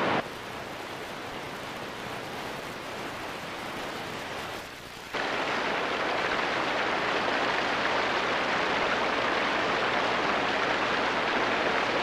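Rushing water: churning river whitewater, then a waterfall's steady rush, which gets suddenly louder about five seconds in.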